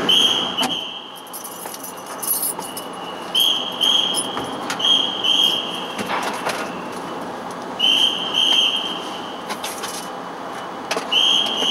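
A deck crew's whistle blown in short double blasts, repeated every few seconds, guiding a truck manoeuvring on the ferry's car deck. Under the whistle runs a steady rumble of vehicle engines echoing in the enclosed deck.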